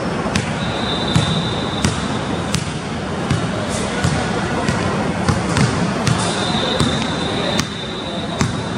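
Basketball dribbled on a hardwood gym floor, a bounce about every two-thirds of a second, over a steady hiss. Two long high squeaks ring out, one near the start and one near the end.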